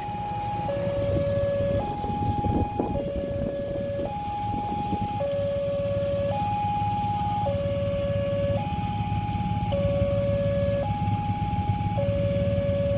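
Railway level-crossing warning alarm sounding a two-tone electronic chime, alternating a higher and a lower note a little over a second each, to signal an approaching train while the barriers are down. A low engine hum runs underneath, from a motor scooter idling at the closed crossing.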